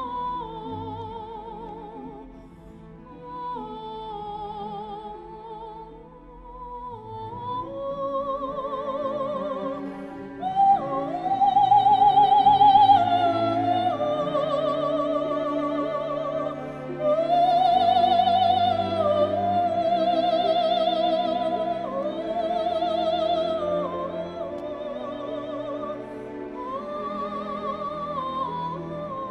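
Classical music with operatic singing: long held notes with a marked vibrato over a sustained low accompaniment, growing louder about ten seconds in.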